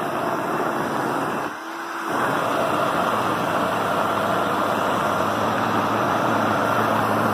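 Aura Titanium Ion hand-held hair dryer running, blowing air through a hose into an inflated soft bonnet cap: a steady fan-and-motor noise that dips briefly about a second and a half in, then runs on evenly.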